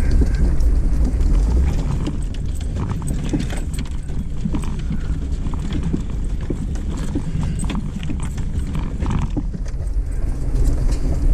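Off-road vehicle crawling over a rough dirt trail: a steady low engine rumble under an irregular run of knocks and rattles as it bounces over the ruts, with branches scraping along its sides.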